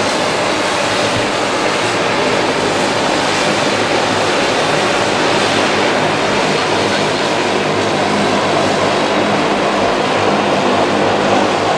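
Twin turboprop engines and propellers of a De Havilland Canada Dash 8 running steadily as it rolls along the runway: a dense engine drone with a steady low propeller hum underneath.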